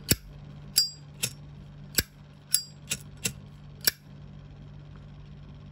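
Zippo lighter being handled, its metal case clicking sharply about eight times in four seconds, two of the clicks ringing briefly with a high metallic tone.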